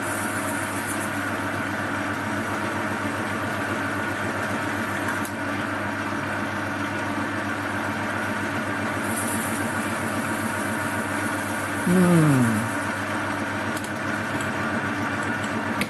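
Metal lathe running with a steady motor hum while a cutter takes a shallow finishing pass on a brass workpiece, with a faint high cutting hiss at times. About 12 seconds in there is a brief, louder falling tone.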